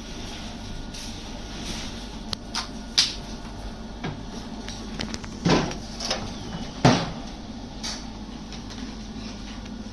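Clatter of utensils being handled at a barbecue grill: a series of sharp knocks and clicks, the loudest about three, five and a half and seven seconds in, over a steady low hum.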